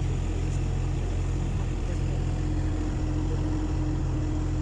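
Sightseeing canal boat's engine running steadily at cruising speed, a low even hum, with a faint steady higher tone coming in about halfway through.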